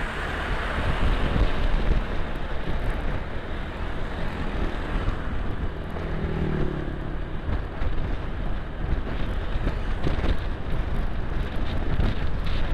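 Wind rushing over the microphone of a camera on a moving automatic motor scooter, over steady engine and road noise.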